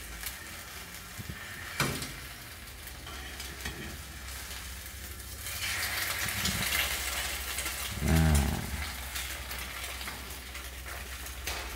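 Egg frying in hot oil in a small nonstick pan: a steady sizzle and crackle that grows louder a little past halfway, as the egg is turned over with metal tongs. There is a light click of the tongs on the pan about two seconds in, and a brief low voice-like sound about eight seconds in.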